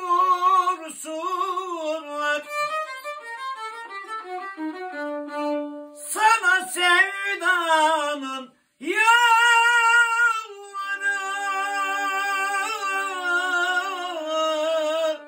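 A violin played with a bow, carrying a slow Turkish song melody with wavering held notes, and a man's voice joining in on long sustained notes. There is a brief break a little before the nine-second mark.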